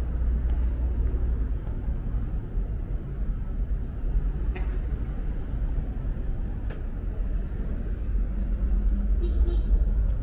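Steady low rumble of city street traffic, cars and buses passing on the road, with a few faint clicks.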